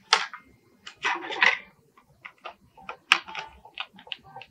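A string of irregular sharp clicks and short scraping bursts, about a dozen of them, the longest near the start and about a second in.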